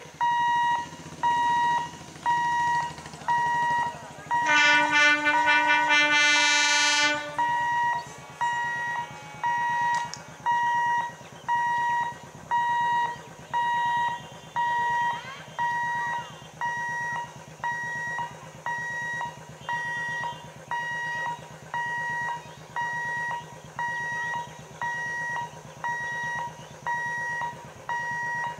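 An EMU local train's horn sounds for about three seconds, starting about four seconds in. Under it runs a low hum, and an electronic beep at one steady pitch repeats about once a second throughout.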